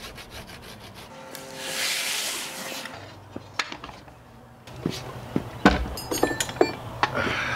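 A long scrape against wood, about a second and a half, followed by a run of sharp knocks and clunks as wooden and metal things are handled on the timber.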